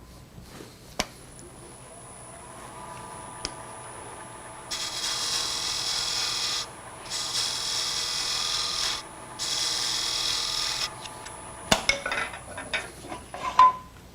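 Wood lathe running with a steady whine while a spindle gouge makes three cutting passes into spinning hard maple, each a hiss lasting a second or two, widening the hole in a box knob. A few sharp knocks follow near the end.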